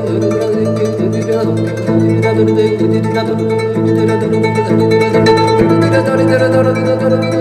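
Instrumental music of plucked strings over held tones and a steady low drone.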